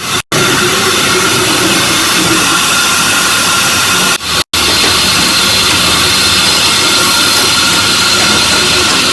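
CNC router spindle running steadily and cutting a pattern into MDF sheet, a loud hissing whine with steady tones on top. The sound cuts out for an instant twice, just after the start and about four and a half seconds in.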